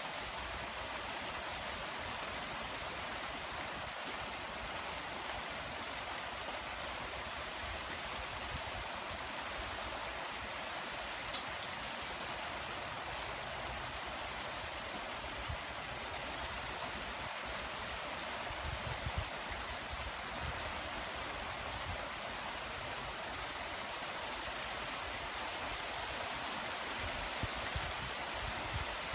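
Light steady rain falling on foliage, grass and pavement: an even, unbroken hiss. A few brief low rumbles come through about two-thirds of the way in and again near the end.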